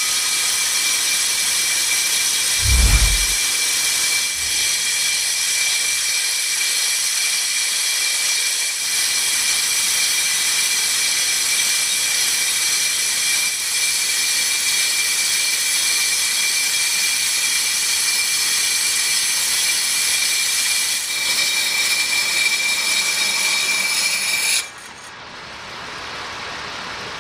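Kwik-Way on-car brake lathe's cutting bits machining a spinning front brake rotor: a steady, high-pitched metallic screech and hiss, with a brief low thump about three seconds in. About 25 seconds in the screech cuts off sharply as the bits clear the rotor at the end of the cut, leaving a quieter steady hum.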